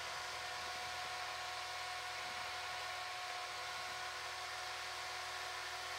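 Jeep Wrangler LJ's engine running at low speed as it crawls through snow, heard faintly as a steady low hum under an even hiss.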